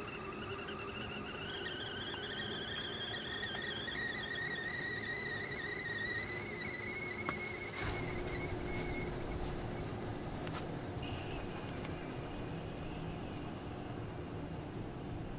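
Several high whistling tones held steadily and slowly rising in pitch, over a low steady hum.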